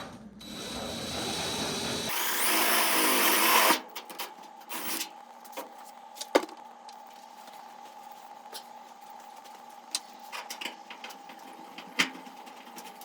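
Hand-held electric drill running for about three seconds, its whine rising as it speeds up and bites into the car's sheet metal, then stopping suddenly. Scattered small clicks and knocks follow.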